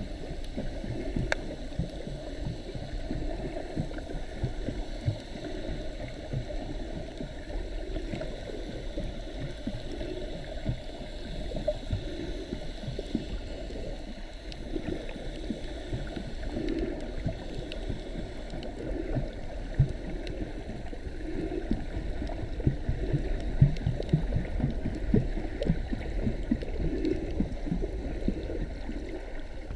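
Muffled underwater sound of water moving around a submerged camera: a steady, low rumbling gurgle.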